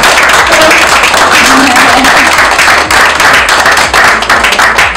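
A room of guests applauding, many hands clapping in a dense, steady patter.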